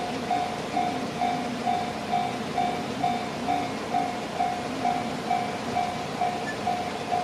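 Japanese railway level crossing's electronic warning bell ringing steadily, a single-pitched ding repeating a little over twice a second, while the crossing is closed for a train.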